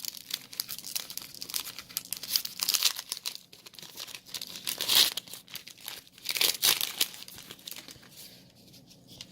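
Foil Yu-Gi-Oh booster pack wrapper being torn open and crinkled by hand, in irregular crackly bursts, loudest about halfway through, then quieting near the end.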